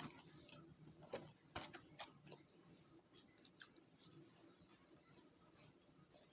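Faint, scattered clicks and crackles close to the microphone, with a few sharper ones between one and two seconds in and one near four seconds in, over a quiet background.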